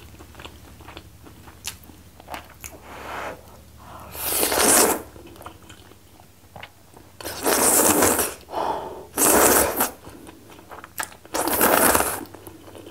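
Loud slurping of knife-cut noodles in spicy soup (kalguksu), four long slurps of about a second each, the first about four seconds in. Faint mouth and chewing clicks fall between the slurps.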